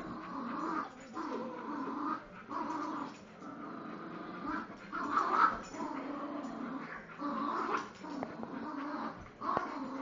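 Dogs growling in uneven bursts while playing tug of war over a toy, a Yorkshire terrier against a large dog.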